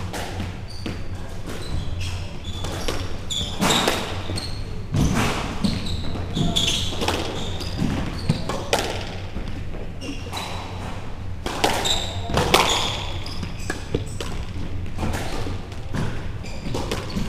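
Squash rally: the ball repeatedly struck by rackets and smacking off the court walls, each hit ringing briefly, with short high squeaks from the players' shoes on the court floor.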